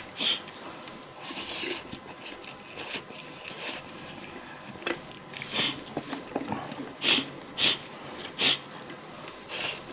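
A person eating instant noodles: a string of short, sharp slurps and sniffs, the loudest three close together near the end, with quieter chewing between them.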